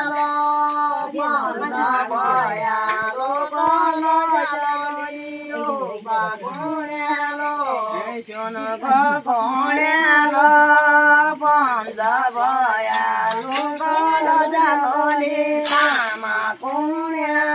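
Women singing a Gaura festival song unaccompanied, a slow melody of long held notes that glide up and down between phrases.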